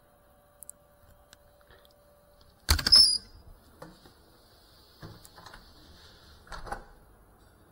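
A loud clatter of knocks about three seconds in, followed by a few softer knocks and a brief faint hiss. No motors are running.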